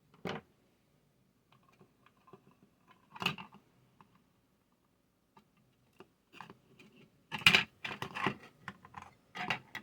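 Irregular light clicks and knocks from small parts and hand tools being handled during work on the heat gun's wiring. One knock comes near the start, another about three seconds in, then a quick run of clatters near the end.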